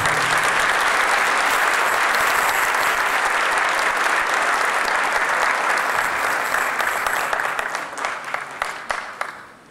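Large audience applauding, a dense steady clapping that thins to scattered separate claps and dies away near the end.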